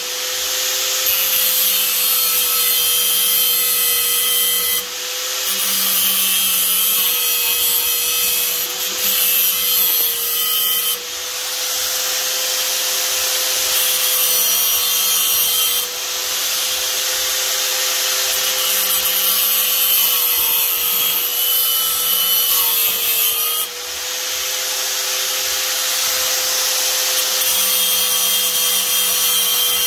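Corded angle grinder with a cut-off disc cutting into a steel chainsaw bar: a steady motor whine under a hissing grind that eases off for a moment every five to seven seconds as the disc is lifted and set back into the cut, the motor's pitch sagging briefly under load twice.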